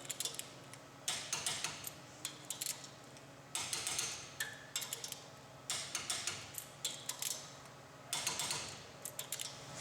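Ratcheting torque wrench clicking in four quick runs as it turns down the intensifier cylinder's cap screws, one bolt after another on the 70 foot-pound pass.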